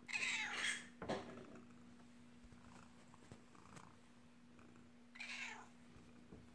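Domestic cat meowing: a loud meow right at the start, a shorter call about a second in, and another meow about five seconds in.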